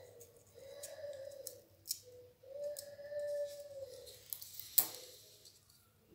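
Die-cut cardboard parts being popped out of a sheet and handled: crisp paper clicks and rustles, the loudest a sharp snap about five seconds in. A faint drawn-out tone sounds twice underneath.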